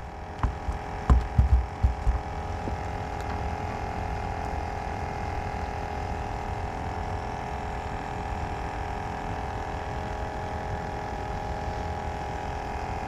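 Small black drum croaking while held in hand: a steady, droning hum. A few dull knocks of the fish being handled come in the first two seconds.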